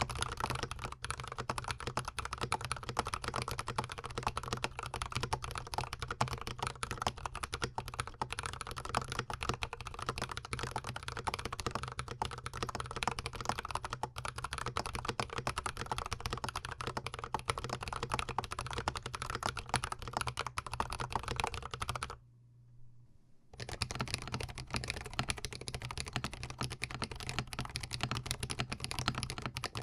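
Continuous fast typing on a GMMK Pro mechanical keyboard fitted with Holy Panda tactile switches, close-miked. It breaks off for about a second a little over two-thirds of the way through, then resumes.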